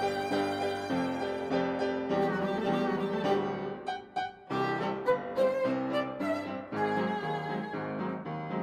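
Background music: an instrumental piece with a melody line, with a brief pause about four seconds in.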